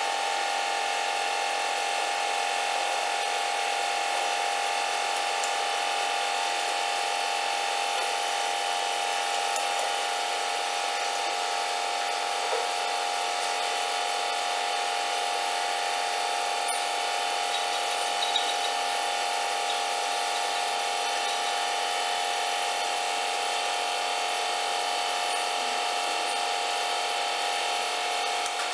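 Steady machine hum made of many fixed tones, unchanging throughout, with a few faint clicks.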